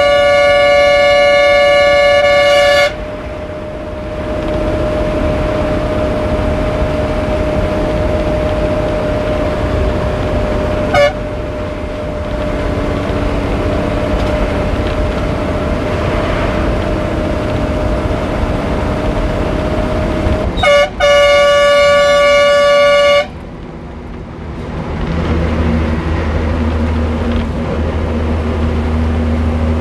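Bus horn blowing long blasts over the bus's engine and road noise heard inside the cabin. One blast lasts about three seconds at the start, a brief toot comes about eleven seconds in, and another blast of a couple of seconds comes near twenty-one seconds. A deeper engine rumble rises near the end.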